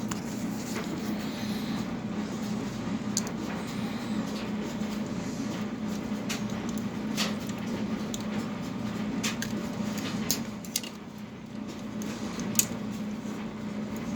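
Metal clicks and taps of a deep-dish socket pressing a new retaining clip onto a furnace draft inducer motor shaft, a few sharp clicks standing out, over a steady low hum.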